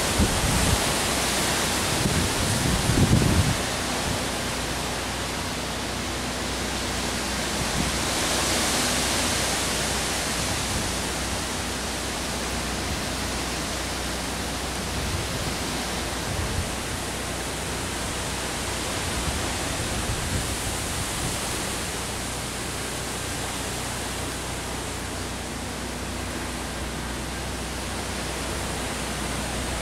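Hurricane Irma's wind rushing steadily through the trees, swelling in a gust about eight seconds in. In the first few seconds the wind buffets the microphone in low rumbles.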